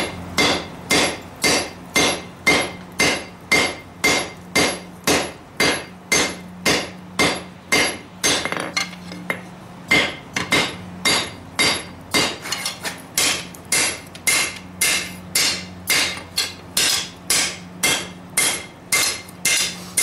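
Hammer blows on hot lawnmower-blade steel against an anvil, about two sharp ringing strikes a second, drawing the steel out into a tang. The strikes pause briefly partway through and then come a little faster.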